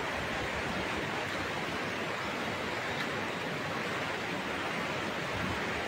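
Steady rushing of a swollen, muddy river in flood: an even, unbroken hiss of fast-moving water.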